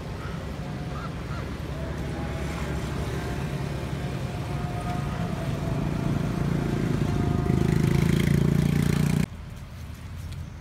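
Passing road traffic: a vehicle engine's steady low noise building up, loudest shortly before it cuts off suddenly about nine seconds in.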